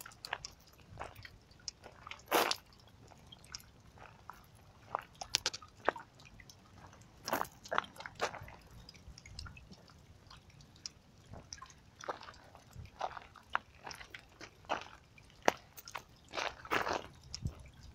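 Footsteps crunching on a gravel path: irregular crunches with pauses between, the loudest about two seconds in and a cluster near the end.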